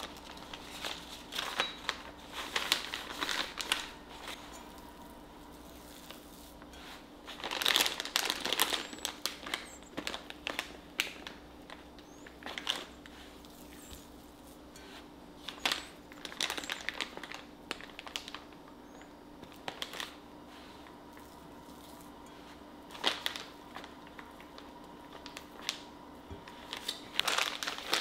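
Clear plastic piping bag crinkling and rustling as it is handled, fitted with a metal tip, filled with cookie dough and twisted shut. The crinkling comes in irregular bursts with short quiet gaps between.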